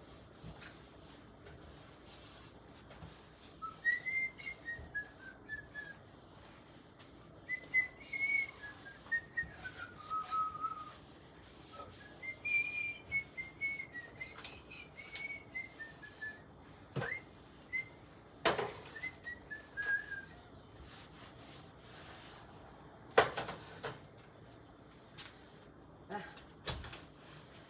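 A person whistling a slow tune in short melodic phrases while scrubbing a stove, with a few sharp knocks and clatters of things being handled, the loudest near the end.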